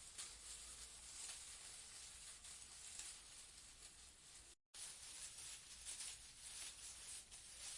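Leaves rustling in a breeze: a faint, soft, crackly hiss with small flickers. It cuts out completely for a split second a little past the middle.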